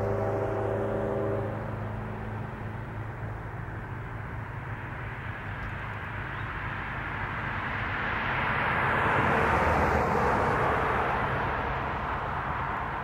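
A car passing on the road beside the track: tyre and engine noise swells to its loudest about ten seconds in, then fades. For the first second and a half, a distant locomotive horn holds a chord.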